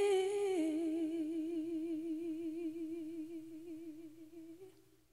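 A singer holding one long note with vibrato, without accompaniment, stepping down in pitch a little after half a second in and fading out near the end.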